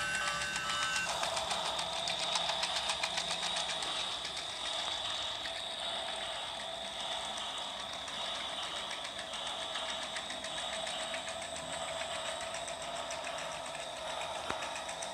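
Toy train's small motor and gears running with a steady whir and fast, even clicking. A short tune ends about a second in.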